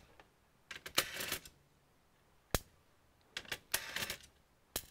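Small clicks and short rattles of hands working on the internal parts of an all-in-one computer during disassembly. There is a cluster of clicks about a second in, one sharp click in the middle, another cluster shortly after, and a single click near the end.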